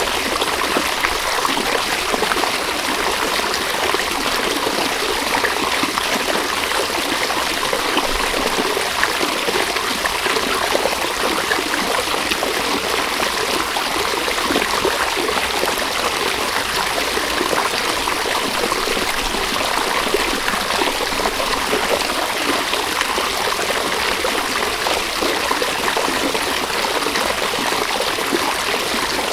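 River water running and babbling over stones: a steady, unbroken rush with trickling detail.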